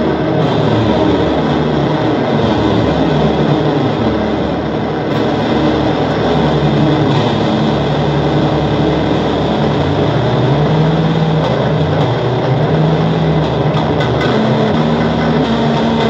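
Noise music: a dense, loud wall of rushing hiss with low droning tones that shift and step in pitch, with no break.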